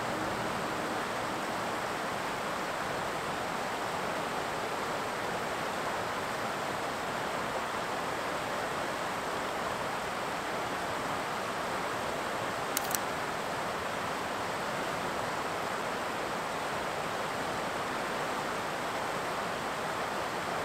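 Rushing water of a clear mountain river running over a rocky bed and rapids, a steady, even rush. Two quick clicks come a little past the middle.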